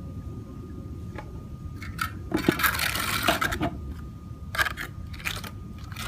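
Wet fibre-reinforced concrete patching mix being poured and scraped out of its mixing container onto a patch: a longer pour about two seconds in, then a few shorter bursts.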